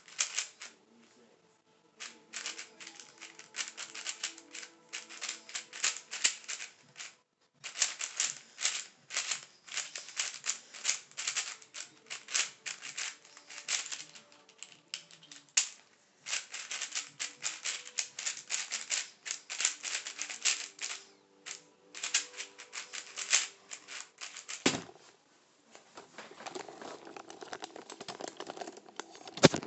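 Rapid clicking and clacking of a MoYu MGC 4x4 speedcube's layers being turned, in quick runs broken by short pauses. Just before the end comes a sharp slap as the hands come down on the SpeedStacks timer pads to stop the solve, followed by rustling handling noise.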